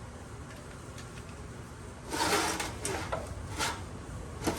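Metal hand tools working a suspension nut loose: scraping and rattling with a few sharp clicks, starting about two seconds in after a quiet stretch.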